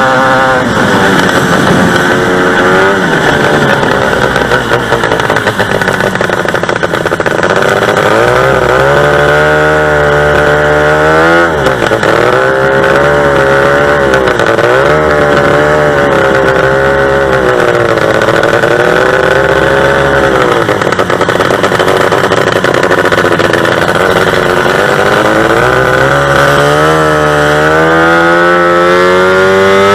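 Two-stroke racing engine revving up and down several times, its pitch rising and falling repeatedly and climbing again near the end.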